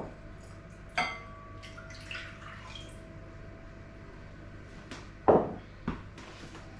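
Milk and cream poured from a measuring jug into a glass mixing bowl, with a sharp clink of glass about a second in that rings on for a few seconds. Near the end comes a loud knock and a smaller one, as the jug is set down on the worktop.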